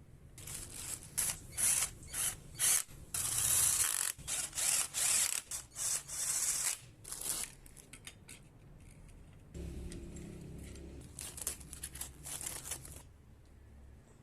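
Mechanical ratcheting in a run of short bursts, with one longer stretch about three seconds in. About nine and a half seconds in, a steadier lower sound starts, with more clicking bursts over it until shortly before the end.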